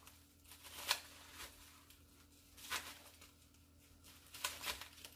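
A few brief, soft rustles from gloved hands handling plastic bubble-wrap packaging, over a faint steady hum.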